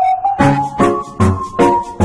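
Background music: an upbeat tune with a steady beat of about two and a half strikes a second and a bright, plinky melody on top.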